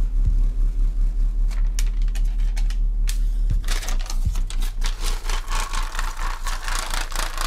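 Homemade MDF ported subwoofer playing a deep steady tone, with a strip of paper held at its port fluttering and rattling rapidly in the port's air blast from about halfway through.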